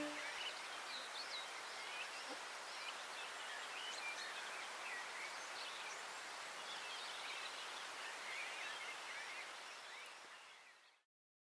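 Small birds chirping and calling over a steady outdoor hiss of ambience, fading out near the end.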